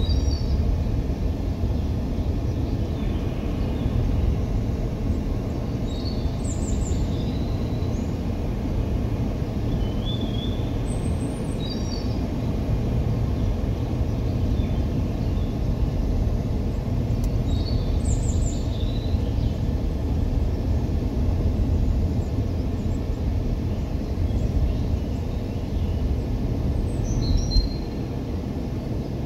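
Steady low rumble of a car driving on a paved road, heard from inside the car, with a songbird singing short high phrases every five or six seconds.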